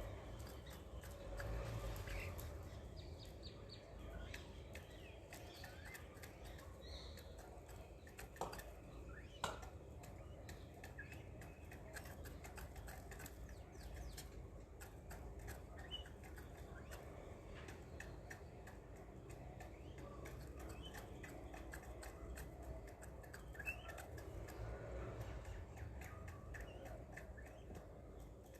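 Peafowl pecking at food: frequent light taps and ticks, with a couple of sharper knocks about a third of the way in and a few faint bird chirps.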